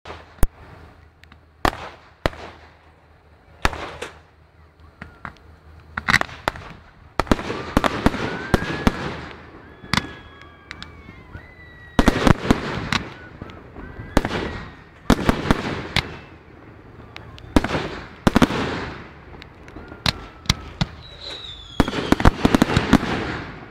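Fireworks display finale: a quick series of sharp bangs from bursting shells, building into dense clusters of bangs and crackling several times, heard through a mobile phone's small microphone.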